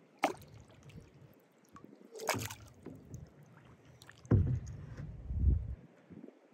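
Close-by knocks and rumbling from a kayak on the water: a sharp knock just after the start, a louder clatter about two seconds in, then a low rumble lasting about a second and a half near the end.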